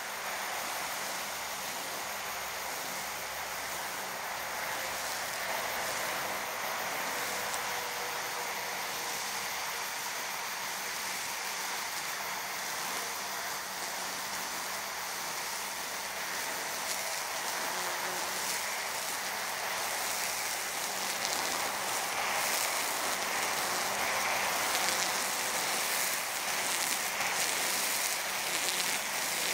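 Battery-powered string trimmer cutting through tall, wet grass: a steady whirring hiss with no engine putter, growing louder over the last ten seconds or so, with steady traffic hiss underneath.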